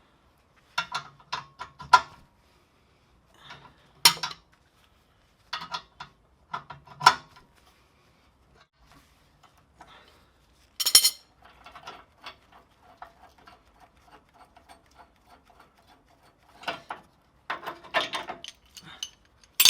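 Metal tool clanks and a ratchet wrench clicking as the gear puller holding the torsion bar's preload on the Hummer H2 is wound off. A long run of quick, even ratchet clicks comes about halfway through, with sharper metal knocks before and after it.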